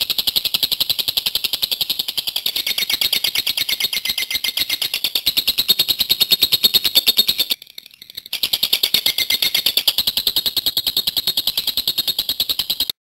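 Lovebird giving its long 'ngekek' chatter: a fast, even string of sharp, high-pitched chirps that runs on and on. It breaks off briefly about halfway through, then starts again. A long, unbroken ngekek like this is the quality prized in Indonesian lovebird singing contests.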